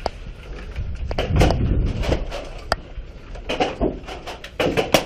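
Clatter of a Nerf battle: scattered sharp clicks and knocks of blasters and foam darts, with heavier thumping about a second and a half in.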